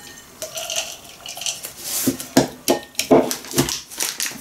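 Chopped nuts sliding and rattling out of a plastic chopper bowl onto a china plate, then a quick run of about six knocks and clinks as the bowl and plate are handled on the table.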